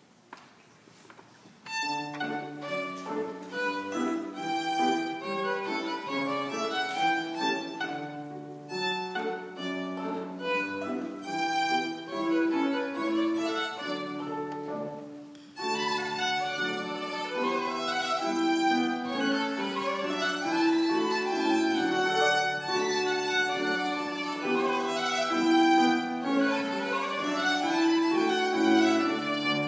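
A violin played with the bow, with piano accompaniment underneath, starting about two seconds in. The music breaks off briefly about halfway through, then goes on.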